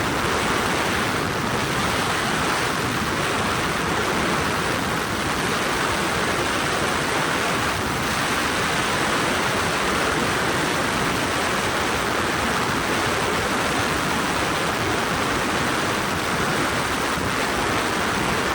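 Helicopter in flight: a steady, even rushing noise with no distinct beat.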